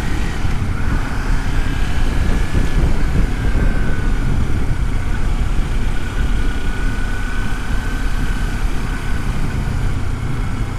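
Kawasaki Versys-X 300 parallel-twin engine running steadily while riding, heard through a helmet-mounted microphone with wind and road noise.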